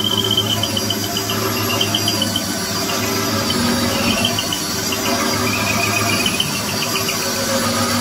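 Cordless drill running a 70 mm holesaw through timber wall cladding: a steady motor drone with a high, pulsing squeal over it.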